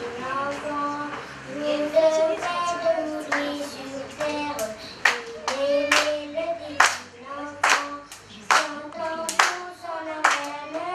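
A child singing a song into a microphone, with people clapping along to a steady beat about once a second. The clapping starts a couple of seconds in and grows louder about halfway through.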